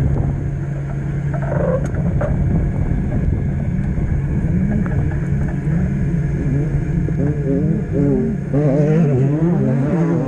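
Off-road race car engine running with a steady low drone, its pitch rising and falling repeatedly over the last few seconds as it revs up and down.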